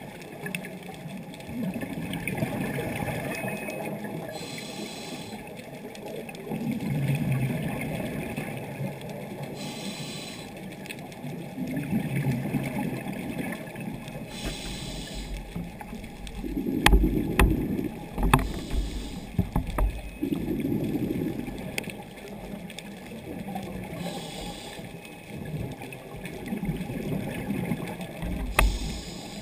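Scuba diver breathing through a regulator underwater: a short hiss on each inhale about every five seconds, followed by a longer gurgling rush of exhaled bubbles. A few sharp clicks come around the middle, with the loudest bubbling.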